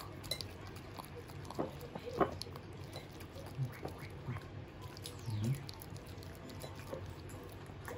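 A small dog licking and smacking its mouth close by while eating: scattered short wet clicks, with a couple of brief low sounds about halfway through.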